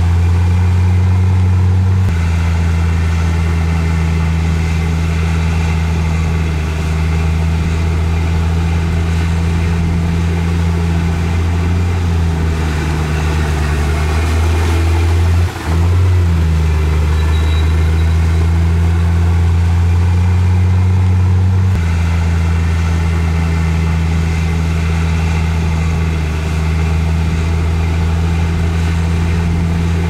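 Heavy earthmoving machine's diesel engine running steadily. Its note drops slightly about two seconds in, wavers with a brief dip around the middle, and picks back up about two-thirds of the way through.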